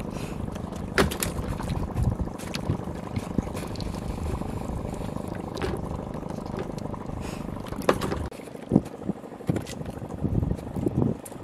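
Water lapping against a small wooden canoe with wind on the microphone, a steady rush that drops away about eight seconds in, with scattered knocks on and around the boat, more of them near the end.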